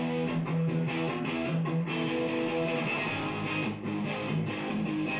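Live punk band playing: electric guitar strumming chords over bass guitar and drums, the whole band coming in together right at the start.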